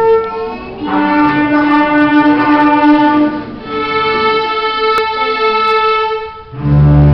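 Orchestra strings playing a slow melody in long held notes, led by violins; a loud low bass line comes in near the end.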